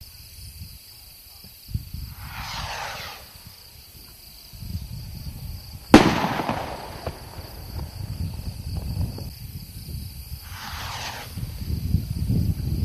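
Two Heat Seeker firework rockets going up, each with a brief rushing hiss that falls in pitch as it climbs. The first hiss follows a short pop, and that rocket bursts about six seconds in with a sharp, loud bang and a rumbling tail. The second rocket is still climbing near the end.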